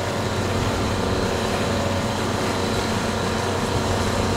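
Boat under way: a steady low motor hum over an even rushing of water and wind.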